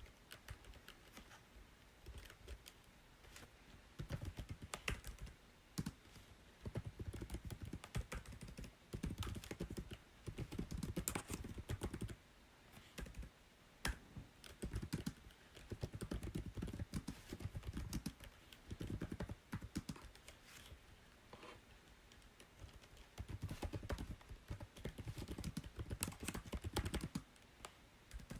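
Typing on a computer keyboard: runs of rapid key clicks lasting a few seconds each, broken by pauses of a second or two.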